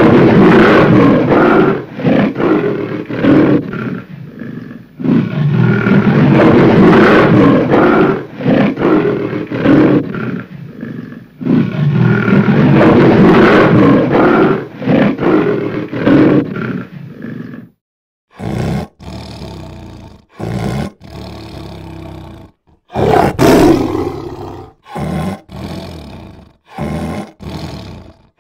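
Big cats roaring in long, loud bouts for most of the first two-thirds, then, after a sudden break, a run of shorter separate roars.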